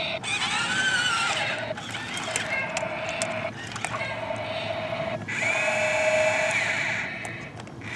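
Toy State CAT remote-control excavator's small electric motors and plastic gearboxes whirring in spurts as the cab swings and the arm moves. The whir stops and restarts about three times, each stop brief.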